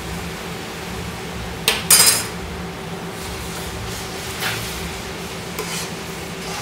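A metal utensil clinking and scraping against a frying pan as pasta is tossed in its sauce: a cluster of sharp clinks about two seconds in, then a few lighter ones, over a steady low hum.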